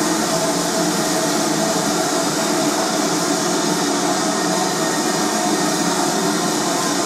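Steady, unchanging mechanical hiss and hum from locomotives standing in an engine shed.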